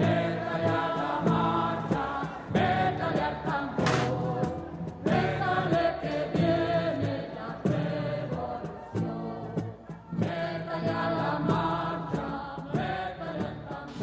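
A song sung by several voices in chorus over instrumental backing, with a regular beat.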